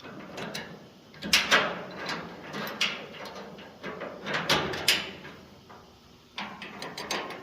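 Metal parts clicking, knocking and scraping as a tailgate latch and its plate are worked into the opening cut in a steel tailgate, in irregular clusters of sharp knocks about a second and a half in, near three seconds, around four and a half to five seconds, and again near the end.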